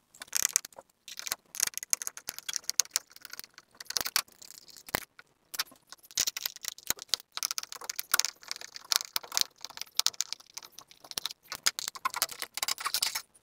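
Screws being undone and a 2.1 home theatre amplifier board worked free of its frame: a steady run of irregular small clicks, scrapes and rattles.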